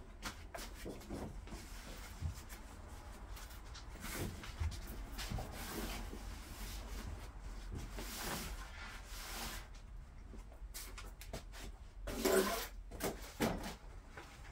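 A quilted moving blanket rustling and rubbing as it is dragged and spread over a car's roof and body, in short scrapy bursts, with a louder bump and scrape about twelve seconds in and a smaller one soon after.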